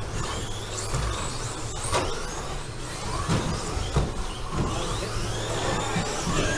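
Several electric RC stadium trucks racing: high-pitched motor whines rise and fall as they speed up and slow down, with a few short knocks of the trucks landing or hitting the track, over a steady low hum.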